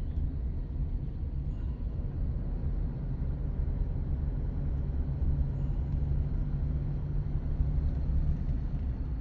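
A vehicle engine running steadily, a low, even rumble with a constant hum.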